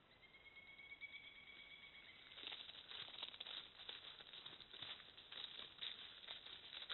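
Wild turkeys walking over dry fallen leaves: faint, irregular crunching and rustling footsteps that start about two and a half seconds in and keep going. A faint thin high tone is heard for the first two seconds.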